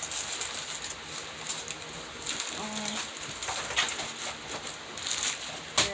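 Plastic packaging of a diamond-painting kit crinkling and rustling as it is handled and opened, with a short low hum about halfway and a sharp click near the end.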